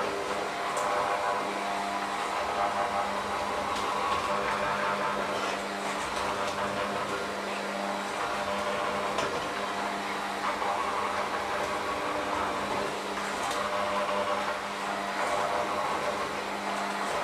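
Electric hand mixer running steadily, its beaters churning a thick mixture in a stainless steel bowl: a constant motor hum with a few faint ticks.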